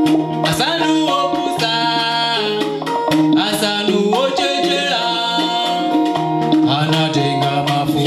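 Live band playing an Afro-jazz gospel song: plucked guitar over drums and percussion, with a lead melody of held notes that slide between pitches.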